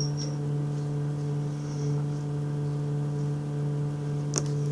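A steady low hum with a few evenly spaced higher overtones, broken by one sharp click near the end.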